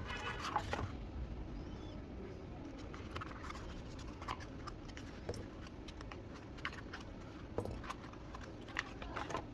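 Scattered light clicks and taps of small objects being handled, over a steady low background hum.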